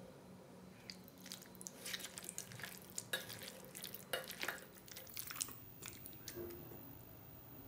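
A hand squishing raw mutton pieces with yogurt and spices in a steel bowl: soft, irregular wet squelches and sticky clicks that thin out near the end, over a faint steady hum.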